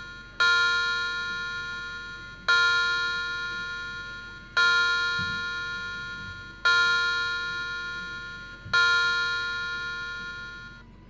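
Battery-powered quartz clock movement's built-in electronic chime striking a bell-like tone five times, about two seconds apart, each strike ringing down until the next. The last strike cuts off suddenly near the end.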